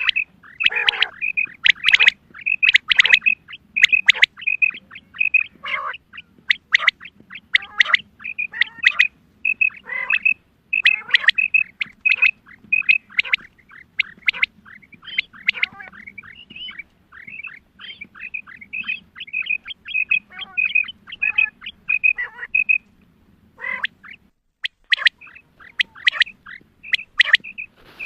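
Female quail calling: a fast, continuous series of short high notes mixed with sharper downward-sliding chirps, pausing briefly near the end. These are the female quail calls used to lure males when hunting.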